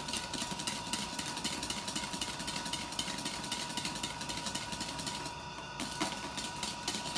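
Wire hand whisk beating cream in a bowl: a fast, steady rattle of strokes against the bowl as the cream is whipped stiff.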